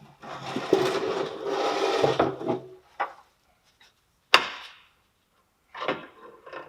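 Tools and metal machine parts being handled during a teardown: a scraping, grinding sound of about two and a half seconds with some ringing, then two sharp knocks and a short clatter near the end.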